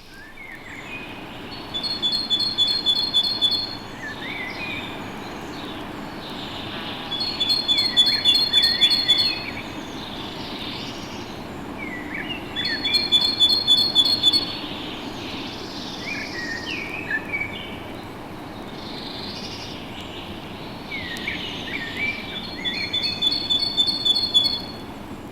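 Great tit singing its two-note 'teacher-teacher' song: four bursts of a quick, high alternating pair of notes, each lasting a second or two, with softer chirps from other birds between them over a steady low background hum.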